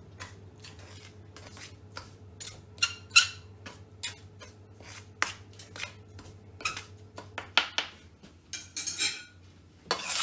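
Metal utensil clinking and scraping against a stainless steel mixing bowl as dry flour and spices are stirred together, in irregular ticks with a few sharper knocks.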